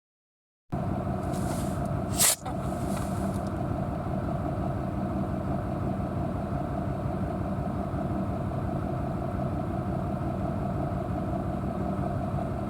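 Steady engine and road noise of a vehicle heard from inside the cabin. It cuts in abruptly after a moment of dead silence, with one sharp click about two seconds in.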